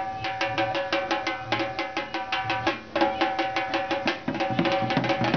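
Dholak (barrel drum) played in fast, dense strokes as accompaniment to a puppet act, over a steady two-note held tone that breaks off briefly about halfway through.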